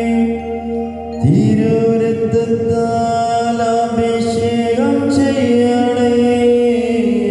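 Slow devotional chant-like music with long held notes, changing pitch about a second in and again around five seconds in.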